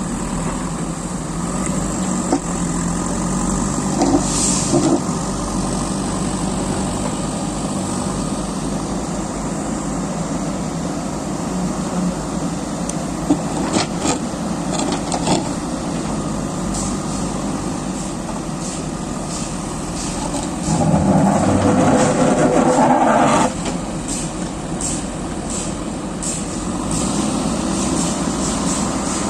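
JCB excavator diesel engine running steadily, with scattered knocks and clanks. A louder stretch lasts a couple of seconds about two-thirds of the way in.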